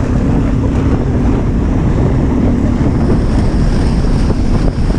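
Wind noise on the microphone and water rushing and spraying as an inflatable towable tube is pulled at speed across choppy water, with a steady low hum underneath for the first three seconds.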